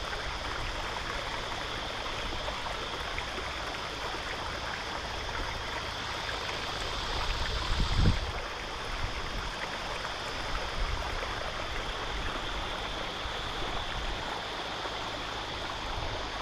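Shallow stream water running over rocks, a steady rushing hiss, with a brief low rumble about eight seconds in.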